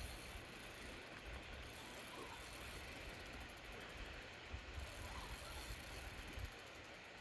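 Faint clicking of a fishing reel as a hooked steelhead is played on a bent rod, over a steady hiss of river and wind. Low rumbles of wind on the microphone come between about four and a half and six and a half seconds in.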